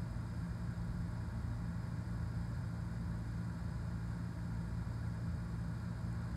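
Steady low hum of a running motor or appliance, unchanging, with no other sound over it.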